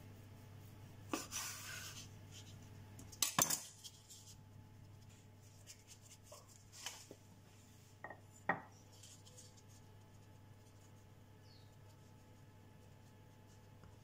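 Kitchen knife cutting a dough-wrapped sausage on a wooden chopping board: a scrape about a second in, then sharp knocks of the blade on the board a little after three seconds. Later come a few lighter knocks as a wooden rolling pin is picked up and handled.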